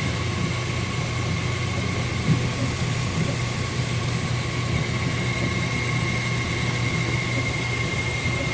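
Brastemp Super Luxo washing machine running a test wash after repair: a steady low motor hum with a constant high whine over it.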